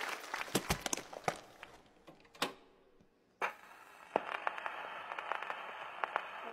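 Audience applause dying away to a few scattered claps. Then a quiet pause with faint hall hiss and a few light knocks.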